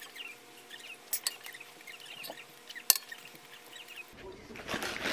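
Close-up eating sounds of a salad wrap: small mouth clicks and crunches, with a sharp click about three seconds in, then a louder crackling rustle starting near the end.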